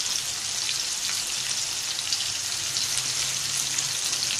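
Keema-stuffed bitter gourds deep-frying in hot oil: a steady, dense sizzle and crackle of bubbling oil.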